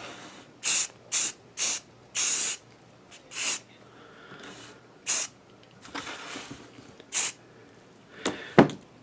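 Aerosol can of spray primer sprayed in about seven short hissing bursts, one of them near two seconds in lasting longer than the rest.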